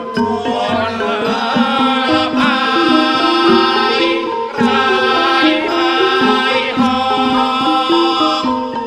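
Traditional Thai ensemble music: hand drums beating under a melodic line of held, stepping notes.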